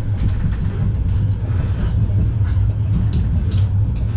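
Cabin noise inside a Vityaz-M (71-931M) low-floor tram during the ride: a steady low rumble and hum from the running gear and traction equipment.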